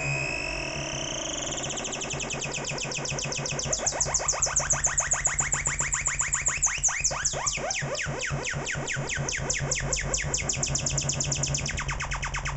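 MFOS Alien Screamer noise box, its oscillator modulated by its LFO and played through speakers. It makes a rapid train of electronic chirping pulses that speeds up as the LFO rate is turned up, with falling pitch sweeps in the middle.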